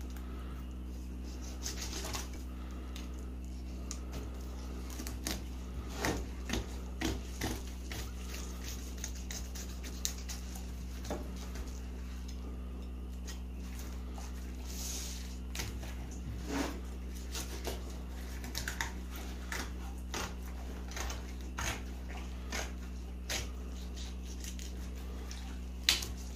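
Fillet knife cutting and scraping through a fish on a wooden plywood table: scattered clicks, taps and scrapes of blade and fish against the board, with a louder knock near the end, over a steady low hum.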